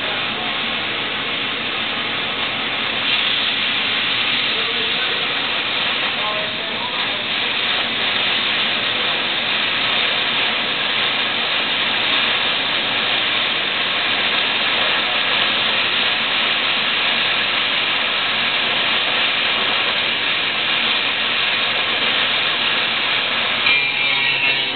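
A steady, loud hiss with no rhythm or breaks.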